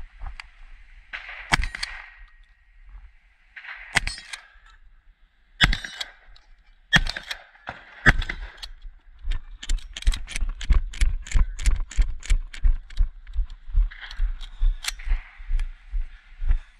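Shotgun fired at steel targets with 00 buckshot: five separate loud shots spaced one to two and a half seconds apart, then a quicker run of shorter, sharp reports and clatter, about three a second.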